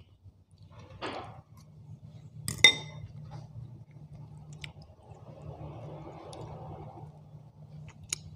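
A metal fork scraping and clinking against a ceramic bowl while scooping up food, with one sharp ringing clink about two and a half seconds in. Soft chewing follows, and there is another small click near the end.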